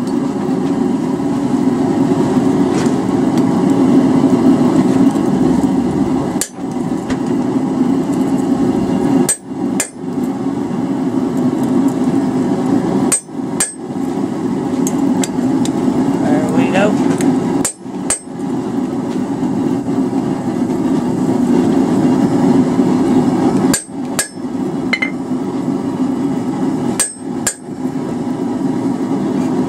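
Hammer striking a hand fullering tool held on hot steel on an anvil, cutting a groove down the middle of the piece. The blows go on steadily, broken by several short pauses.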